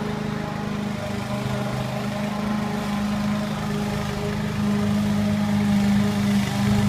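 Greenfield walk-behind lawn mower's Briggs & Stratton 850 I/C single-cylinder four-stroke engine running at a steady speed while mowing grass, getting louder over the last couple of seconds.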